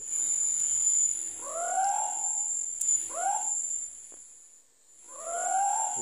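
Scops owl (celepuk) calling: three separate hoots, each sliding upward and then bending over, the second one shortest.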